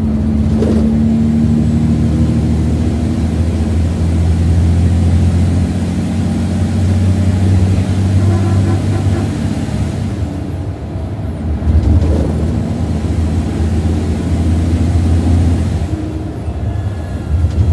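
Mercedes-Benz OC500RF 2542 coach's straight-six diesel engine droning under way, heard from inside the passenger cabin. The low engine note dips and picks up again about ten seconds in and again near the end.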